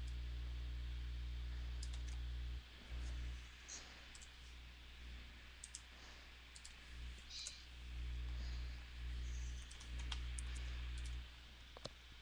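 Faint computer mouse clicks over a low steady hum that drops out and comes back several times.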